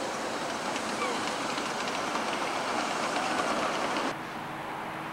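Passenger cars of a ride-on miniature railway rolling past on the track, a rushing noise with rapid clicking of the wheels on the rails. The sound cuts off abruptly about four seconds in, leaving a quieter background with a low steady hum.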